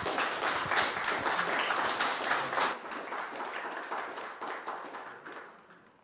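Audience applauding, the clapping loudest in the first few seconds, then thinning and dying away near the end.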